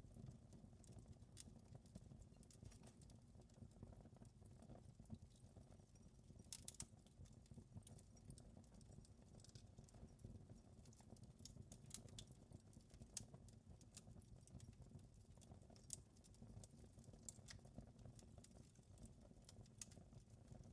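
Wood fire crackling faintly, with irregular sharp pops and snaps over a low, steady rumble.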